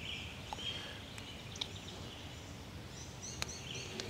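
Faint birdsong: small birds chirping, with a quick run of short chirps a little past three seconds in, and a few soft clicks.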